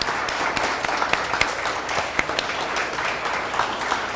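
Audience applauding: many hands clapping in a dense, steady stream of sharp claps.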